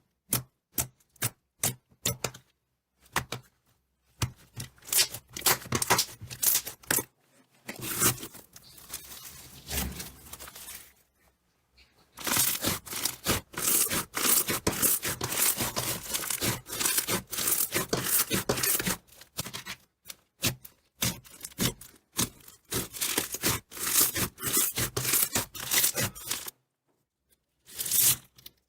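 Slime being squeezed and poked, giving rapid crackling clicks and snaps in irregular bursts, with a few short silences.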